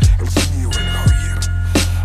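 Hip-hop instrumental beat: deep sustained bass with kick drums and snare hits in a steady rhythm, no rapping.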